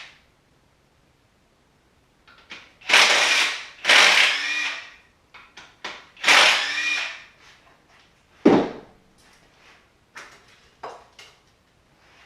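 A power tool run in three short bursts of about a second each, then a single thump and a few light clicks of tools being handled.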